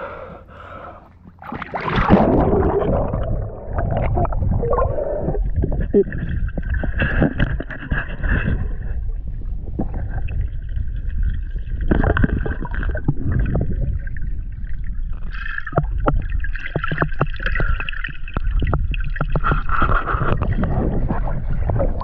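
Muffled underwater sound picked up by a camera on a snorkeler's mask: a splash about two seconds in as it goes under, then a steady low rumble with bubbling and scattered clicks of water moving around the housing.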